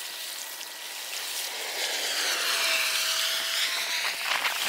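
Seawater washing over shoreline rocks: a rushing hiss that swells about two seconds in and eases again, with a few clicks near the end.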